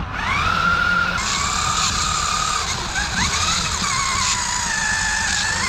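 Toy radio-controlled monster truck's electric motor and gears whining, rising in pitch as it speeds up at the start and then wavering up and down with the throttle, over a rough rushing noise from the running truck.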